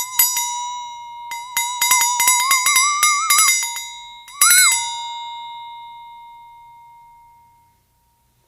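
Flexatone shaken so its beaters strike the metal blade rapidly, a bright ringing tone whose pitch wobbles and creeps upward. A last shake about four and a half seconds in bends the pitch up briefly, and the tone then rings on and fades away.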